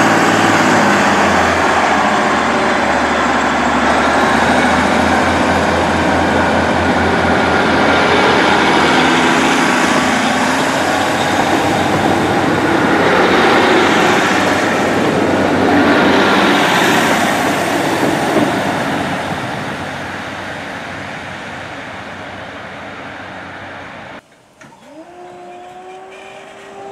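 A Northern diesel multiple unit's engines under power as the train pulls away, fading as it goes. About 24 seconds in, the sound cuts to a Merseyrail Class 507 electric unit whose traction motors start a rising whine as it moves off.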